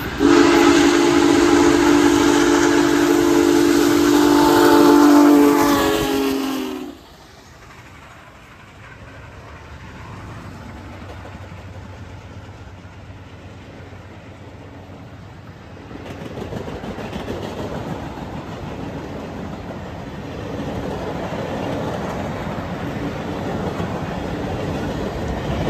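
Union Pacific Big Boy 4014's chime steam whistle blowing one long chord, which cuts off about seven seconds in. After it comes a much quieter steady noise that grows louder again in the second half.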